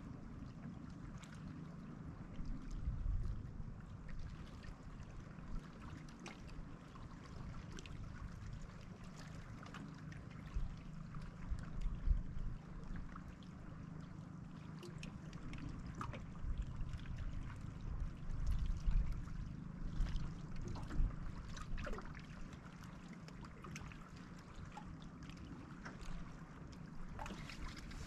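Wind gusting over the microphone with small waves lapping against an aluminum boat hull, a low rumble that swells and eases, with a few faint clicks and knocks.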